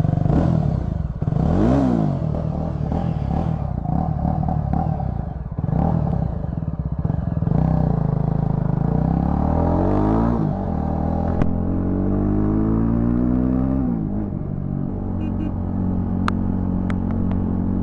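Yezdi Scrambler's 334 cc single-cylinder engine running with both silencers removed, open and loud, accelerating through the gears: the pitch climbs and then drops at each shift, with a quick rev about two seconds in.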